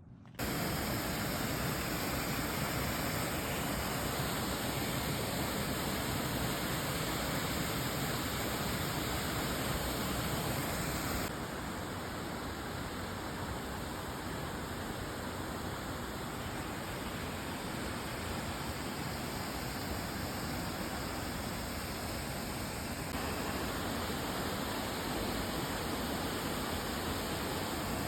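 Waterfall rushing, a steady hiss of falling water. It drops a little in level about eleven seconds in and comes back up a little after twenty seconds in.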